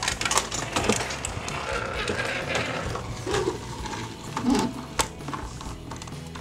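A plastic toy police car being handled and moved over a hard surface: irregular plastic clicks, knocks and scraping.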